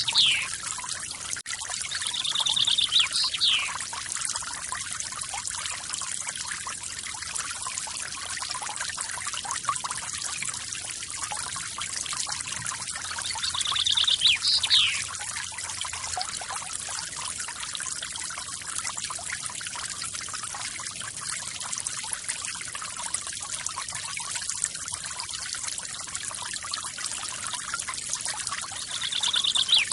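Forest waterfall splashing and trickling steadily. A bird repeats the same short phrase a few times, a quick trill followed by a falling note.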